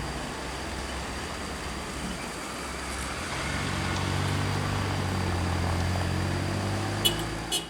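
A heavy road vehicle's diesel engine running at a steady pitch, getting louder from about three seconds in as it comes closer, with a couple of short clicks near the end.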